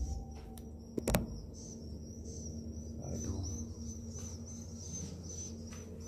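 Swiftlets chirping in a steady run of short, high calls, about three a second, over a low steady hum. Two sharp knocks come about a second in.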